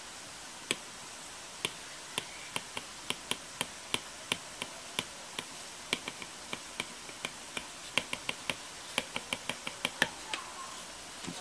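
Stock hard plastic Apple Pencil tip tapping on an iPad's glass screen during handwriting: sharp, irregular clicks, a few a second, one as each stroke lands. This clicking is the noise the stock tip is known for on bare glass.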